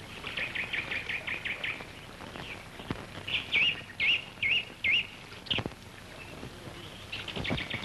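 Forest birds singing: a fast trill of about eight notes, then four loud wavering whistled notes and a sharp falling note, with the fast trill coming back near the end. A few faint knocks sound underneath.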